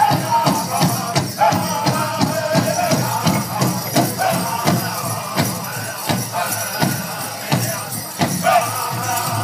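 Powwow drum group singing in high, wavering voices over a steady, even drumbeat on a big powwow drum, accompanying a grass dance.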